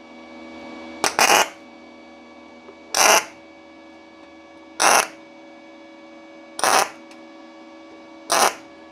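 Parkside PMSG200A1 inverter MAG welder striking five short tack welds on thin steel sheet, each a brief crackling burst of arc, about two seconds apart, over a steady hum. The shielding gas valve is closed, so the tacks are struck without gas, which makes the welder say something is wrong with the gas.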